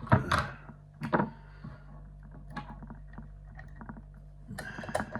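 Handling noise from a lock and picking tools: two or three sharp knocks in the first second or so, then light scattered clicking and a busier cluster of clicks and clatter near the end, over a steady low hum.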